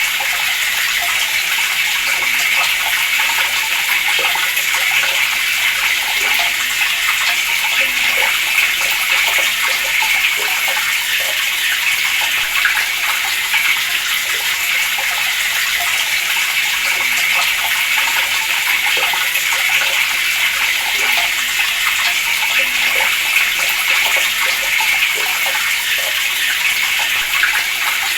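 Water running steadily from a tap in a continuous, unbroken splashing stream.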